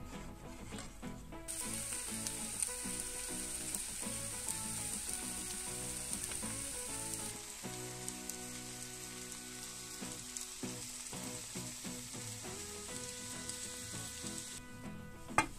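Potatoes and eggs sizzling in a frying pan. The sizzle starts about a second and a half in and fades out just before the end, over background music.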